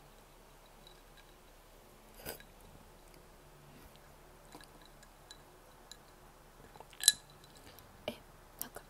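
Close-miked chewing and biting of a doughnut, mostly quiet with a few sharp mouth clicks, the loudest about seven seconds in.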